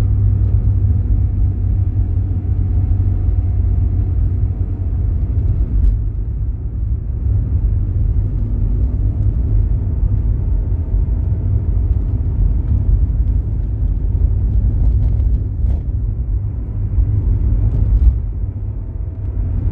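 Car driving on a city road: a steady low rumble of engine and tyres on the pavement.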